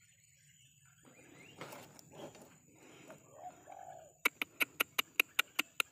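Birds calling among the palms, then in the last two seconds a loud, rapid run of about ten sharp clicks at roughly five a second.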